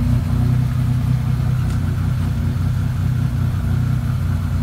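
1987 Buick Grand National's turbocharged 3.8-litre V6 idling steadily through its new 3-inch Pypes exhaust with Dynomax Super Turbo mufflers.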